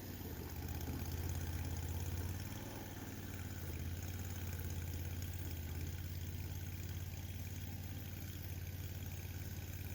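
Mini skid steer's engine running steadily with a low hum, a little louder for a second or so near the start before settling.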